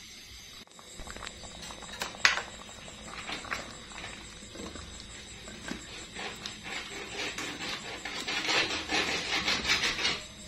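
A ladle stirring chunks of vegetable in a metal pot of soup, with scraping and knocks against the pot. There is a sharp knock about two seconds in, and the clatter is busiest near the end.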